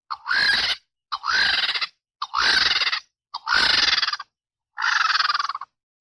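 Vulture giving harsh, rasping squawks, five in a row at about one a second, each just under a second long.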